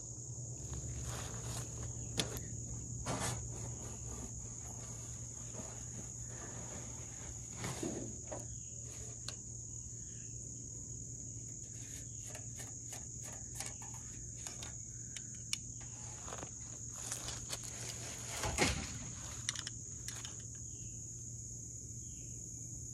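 Insects droning steadily on one high tone, with scattered rustles and clicks of grass and handling close to the microphone; the loudest rustle comes about two-thirds of the way through.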